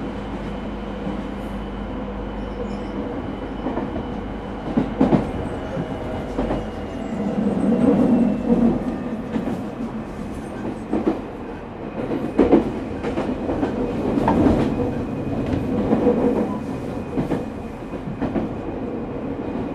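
Running sound heard inside an unrenewed JR 209 series (0 subseries) electric motor car, MoHa 209-135: a constant rumble and steady hum from the traction motors and running gear, with the wheels knocking over rail joints at irregular intervals.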